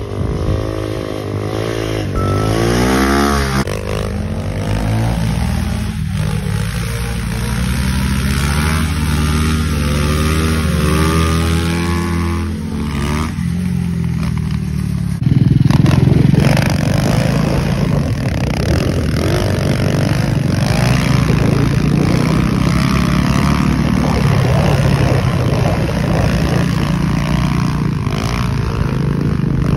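Honda Grom's 125cc single-cylinder engine revving up and down repeatedly as it is ridden through stunts. About halfway through it suddenly becomes louder and closer.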